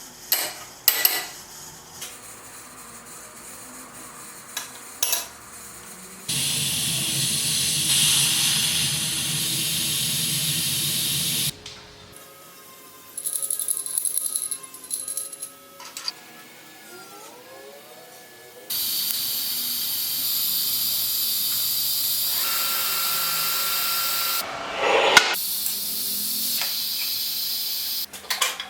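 Metalworking workshop noise: two long stretches of steady hissing from a tool at work, with sharp metal clicks and clanks between them and a few brief gliding tones in the gap.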